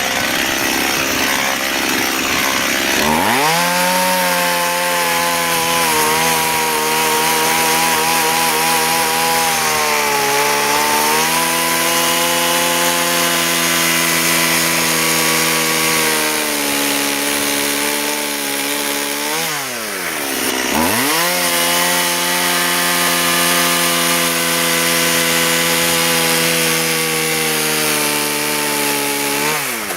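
Stihl 018 (MS 180) two-stroke chainsaw cutting hardwood at high revs. After a few seconds of rough noise the engine note rises and holds, sagging and wavering under load. About two-thirds through, and again at the very end, the revs drop sharply and climb back.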